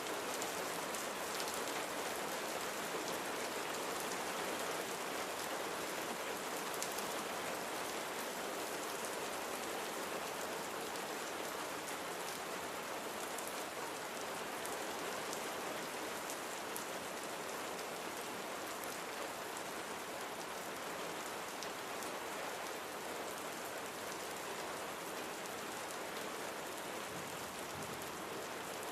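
Steady rain falling, with fine drop patter on a surface.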